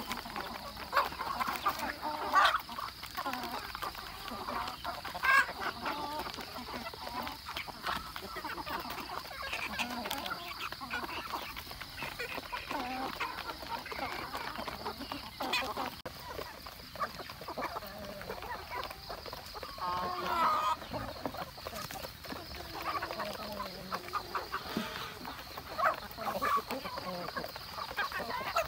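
A flock of chickens and roosters clucking steadily while feeding, with a few louder calls now and then.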